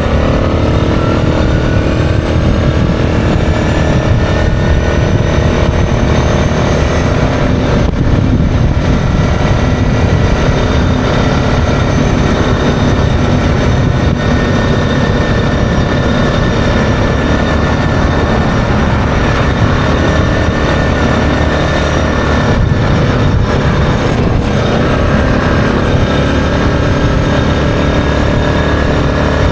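Yamaha Grizzly 660 ATV's single-cylinder engine running steadily at cruising speed under way.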